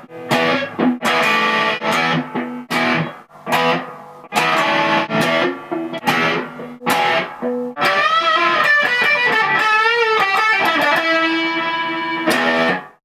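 Electric guitar played through a DOD FX80-B Compressor Sustainer pedal: a run of struck chords and notes, then, about eight seconds in, a sustained lead line with bends and vibrato and long evenly held notes, cutting off suddenly at the end.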